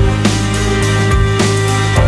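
Background music: held chords over a deep bass line, with drum beats.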